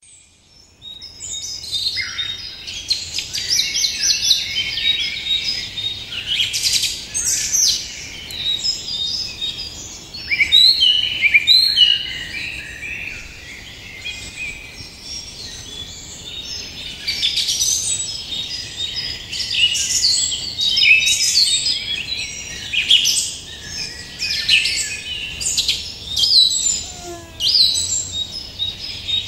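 Many birds singing and chirping at once: a dense chorus of quick, high chirps and trills that overlaps without a break.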